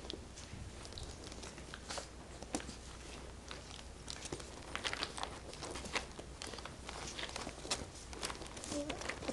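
A puppy scrabbling about and mouthing a plush toy: scattered light clicks and rustles of paws and chewing, growing busier about halfway through.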